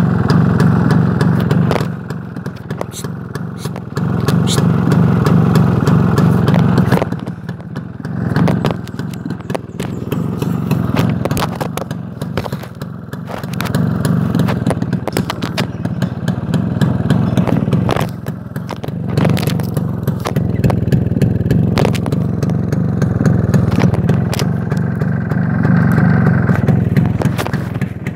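A motor vehicle engine running, its low rumble growing louder and softer every few seconds.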